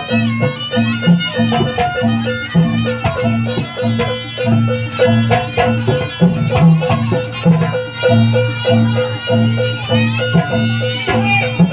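Live Javanese traditional ensemble music accompanying the kucingan dance. Drums and tuned percussion keep a repeating beat under a high, wavering melody.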